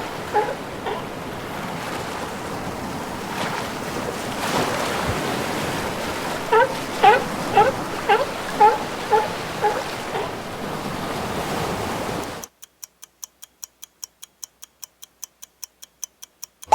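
A sea lion barking in a series of short calls over steady surf, the barks coming at the start and again in a run midway. About four seconds from the end the surf and barks stop and a countdown timer ticks quickly, about five ticks a second.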